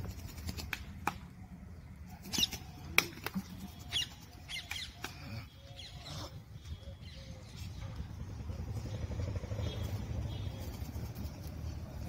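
Caged birds giving short, scattered chirps and squeaks, mixed with sharp clicks of wire cages being handled, mostly in the first five seconds. A low rumble grows louder in the second half.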